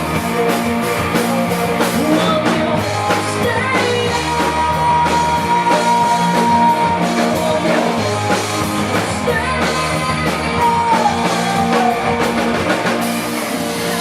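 Live punk-leaning rock band playing loud: electric guitar, bass and drums, with a singer's voice over the top.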